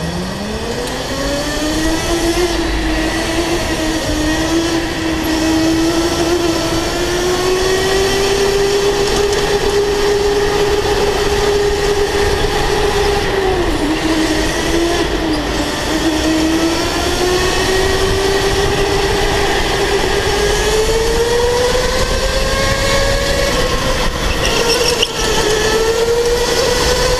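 Electric go-kart motor whining over a steady rushing noise. The whine rises in pitch as the kart speeds up in the first couple of seconds and then holds steady. About halfway through it dips briefly through a tight corner, then climbs again.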